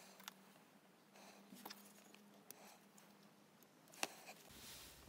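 Near silence with a handful of faint, scattered clicks, the clearest about four seconds in: metal tweezers ticking against a plastic lens mount while picking out shards of a broken infrared filter.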